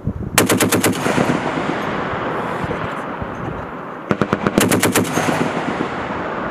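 M2 .50 caliber heavy machine gun firing two short bursts of rapid shots, each about a second long, roughly three seconds apart. A long rolling echo carries on after each burst.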